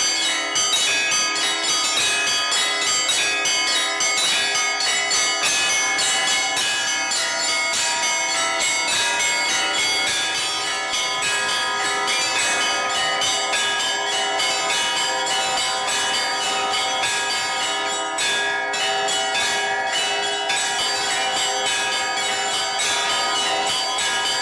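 Orthodox church bells being rung in a continuous peal: several bells of different pitches are struck in rapid succession, several strikes a second, their tones overlapping and ringing on without pause.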